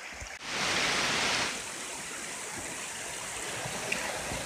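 Stream water rushing steadily over a rocky bed, louder and hissier for about a second near the start.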